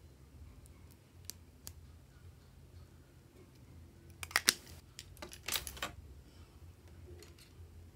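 Small plastic clicks and taps of a lipstick tube and its cap being handled, capped and set down: a few light ticks at first, then a sharp cluster of clicks about four and a half seconds in, the loudest, and a further spread of clicks about a second later.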